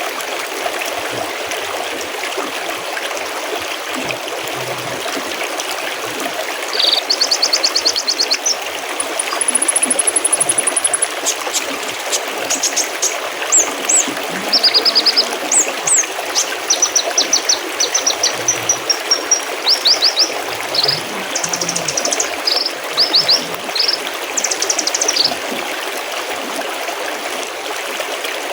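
Mountain stream babbling steadily, with songbird song over it from about a quarter of the way in until a few seconds before the end: high, fast trills, quick runs of short repeated notes and brief whistles.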